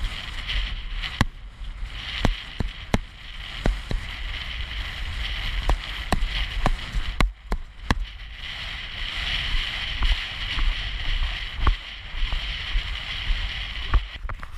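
Wind buffeting and rushing over the microphone of a rider-mounted camera on a galloping horse, with a steady low rumble and irregular sharp knocks from the hooves and tack.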